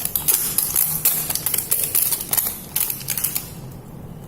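A sealed box being torn open by hand: a quick run of crackling and ripping from the packaging that thins out near the end.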